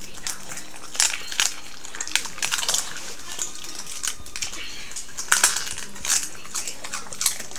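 French bulldog biting and chewing a raw cabbage leaf: irregular crisp crunches, loudest about a second in and again around five and a half seconds.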